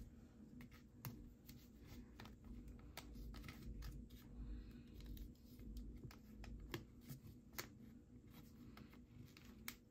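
Faint rustles and scattered small clicks of a folded paper bill being pushed and worked into the slot of a ceramic piggy bank, in otherwise near silence.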